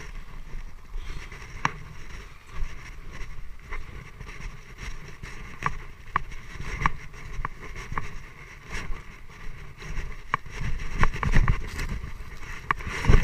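Footsteps on gravel and dry leaves, heard as irregular sharp ticks about once a second that crowd together near the end, over a steady low rumble on the microphone.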